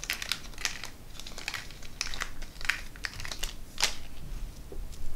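Small plastic packet crinkling in the hands as red lumo tubing is pulled out of it: a string of irregular light crackles and clicks.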